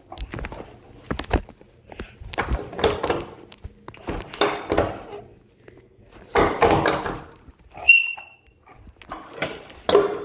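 Dinosaur hand puppet handled against a bathtub: a few light knocks, then four rushing, breathy noises of about a second each, and a brief whistle-like tone around eight seconds in.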